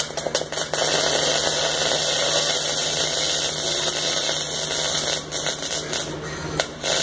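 Wire-feed (MIG) welding arc running with a steady hiss as a bead is laid on a steel bracket. It stutters as the arc strikes at the start, breaks off a few times about five seconds in, and restarts briefly near the end.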